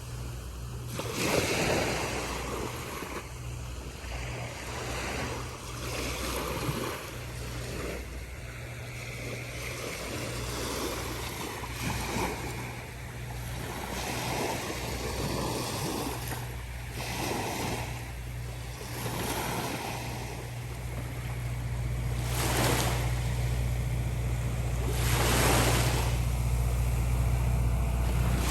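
Small ocean waves breaking and washing up the beach in repeated surges a few seconds apart. A steady low hum runs underneath and grows louder in the second half.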